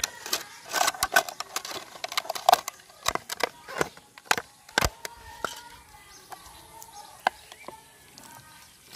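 A thin plastic water bottle crackling and clicking as it is pulled apart and handled, a quick series of sharp cracks through the first five seconds, then fewer, quieter clicks.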